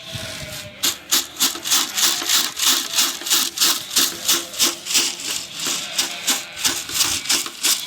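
Dry corn rattling in a container shaken in a steady rhythm, about three shakes a second, to call sheep to follow.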